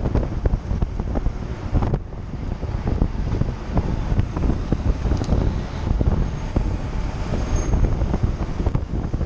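Wind buffeting the microphone of a handlebar-mounted camera on a mountain bike riding fast on asphalt, over a steady road rumble with many small rattling clicks.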